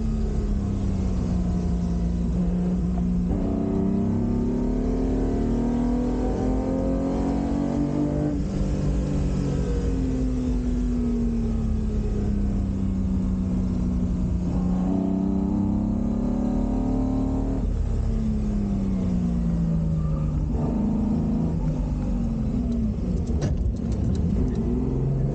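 Ferrari 250 GT Drogo's V12 engine heard from inside the cabin under way, its revs climbing and falling over several seconds at a time, with a few sudden breaks in pitch as it changes gear.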